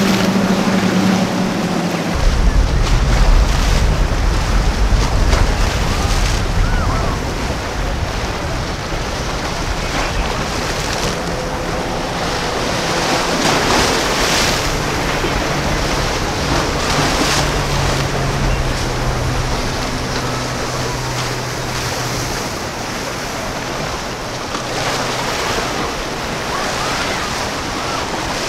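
Choppy inlet water and wind buffeting the microphone, with boat engines under it. A quad-outboard center-console runs at speed and cuts off abruptly about two seconds in. Later a lower, steadier engine hum comes from a smaller boat motoring through the chop.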